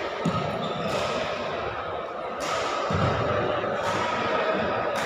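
Echoing indoor badminton hall: several sharp knocks and thuds from racket strikes and players' feet on the courts, over a steady din of the hall with indistinct voices.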